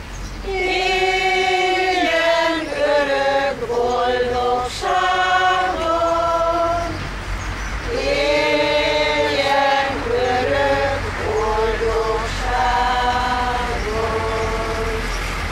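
A choir singing a slow song in long held notes, several voices together, with a brief pause between phrases about halfway through.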